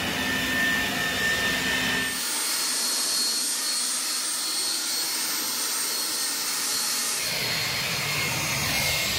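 Corded Black & Decker electric leaf blower running steadily at full power, blowing snow: a rush of air with a high motor whine.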